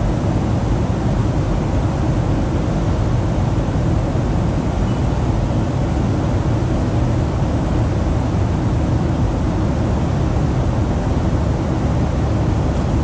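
Steady cabin noise of a jet airliner in flight: engine and airflow noise heard from a passenger seat, a deep, even rush with no change.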